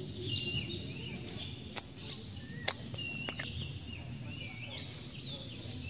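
Birds chirping and whistling over a steady low rumble of outdoor noise, with three sharp clicks around the middle.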